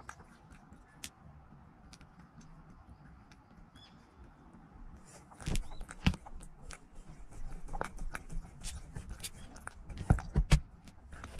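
A cat licking Churu paste off a clear plastic cup: wet clicks and taps of its tongue and nose on the plastic, sparse at first, then frequent from about halfway, with the loudest taps near the end.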